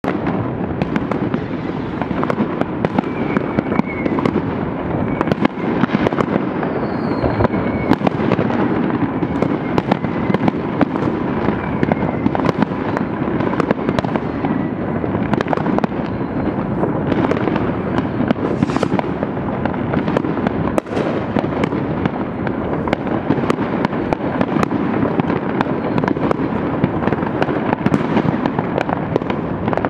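Many fireworks and firecrackers going off at once at varying distances: a continuous wash of overlapping bangs and crackles with sharper single reports scattered throughout, and a few faint whistles in the first several seconds.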